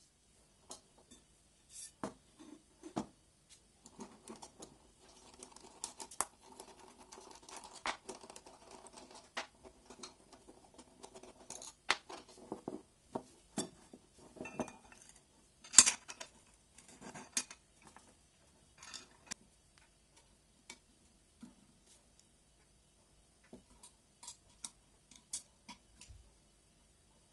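Hands working a bicycle handlebar and stem: scattered clicks and taps of metal parts and small bolts, with rubbing and scraping, as the stem's faceplate comes off and the bar is set into the clamp. The sharpest click comes about two thirds of the way through.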